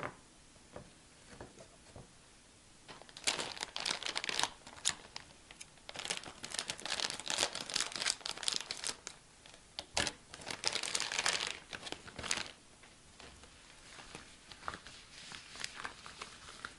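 Thin plastic packaging crinkling in bursts as it is handled, cut open with scissors and torn, then quieter rustling as the rubber cleaning gloves are drawn out. A light knock at the very start as a cork coaster is set down on the table.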